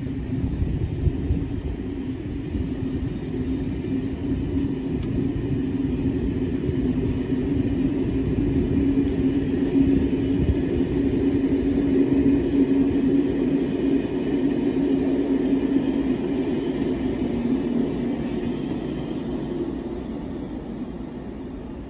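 SNCB passenger train running past on a far track: a steady rail rumble with a low hum, slowly getting louder to about the middle and fading near the end.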